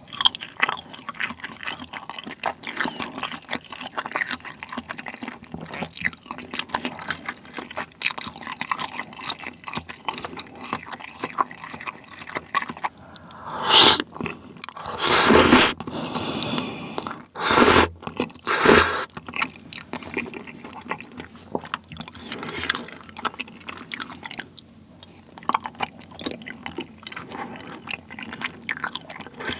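Close-miked eating of spicy tteokbokki and pasta noodles in a creamy sauce: wet, sticky chewing clicks throughout. Around the middle come four loud noodle slurps in quick succession.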